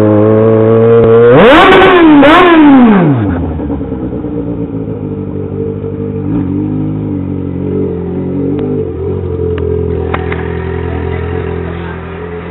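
Yamaha XJ6 motorcycle's inline-four engine, running without its exhaust baffle, pulling up through the revs and blipped sharply twice, the revs falling away about three seconds in. It then runs on steadily at lower revs.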